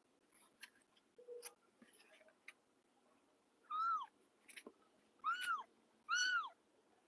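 Young kittens mewing: three short, high mews in the second half, each rising and then falling in pitch. Before them come faint light clicks and scratches.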